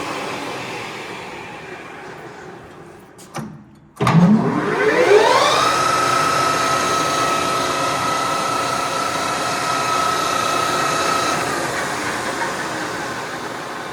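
AYEL-TECH CD6241 metal lathe's spindle drive slowing down after being switched off, then a click. It restarts with a whine that rises in pitch for about two seconds and runs steadily. Near the end it is switched off again and the whine fades as the spindle coasts down.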